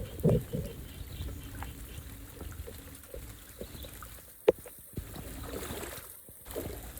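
Water trickling and pouring, with scattered knocks and a sharp click about halfway through.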